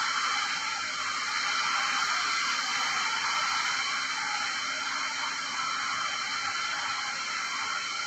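A steady, even hiss with a faint hum underneath, like air-moving machinery, with no sudden sounds.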